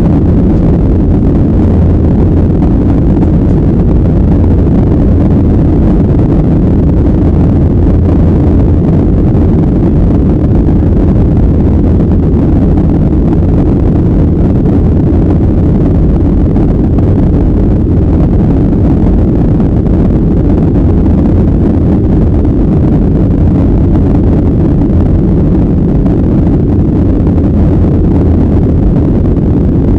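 Boeing 737 airliner climbing after takeoff, heard inside the cabin: a loud, steady, low rumble of jet engines and rushing air.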